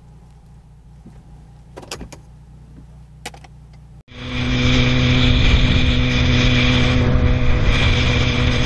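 Motorcycle engine running steadily at highway speed with heavy wind and road rush, heard from the rider's position. It cuts in suddenly about four seconds in. Before it there is only a faint low cabin hum with a few light clicks.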